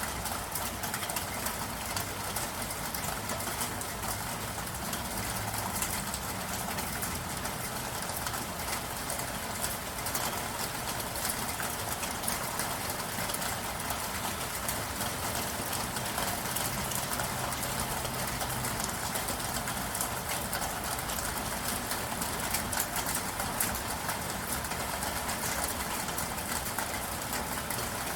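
Steady rain falling: a constant hiss of many small drops pattering, with no let-up.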